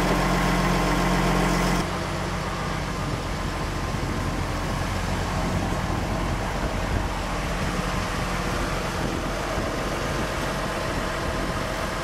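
John Deere 700J-XLT crawler dozer's diesel engine idling steadily. About two seconds in the sound changes abruptly and drops a little in level, then runs on at a steady idle.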